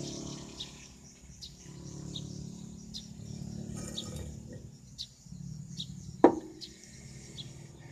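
A single sharp metallic clank about six seconds in, from a heavy steel ring knocking against a truck wheel hub. Behind it are a steady low hum and a bird chirping about once a second.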